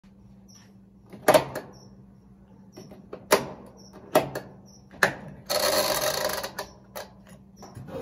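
Several sharp knocks about a second apart over a faint steady hum, then a rushing, scraping noise lasting about a second just past the middle.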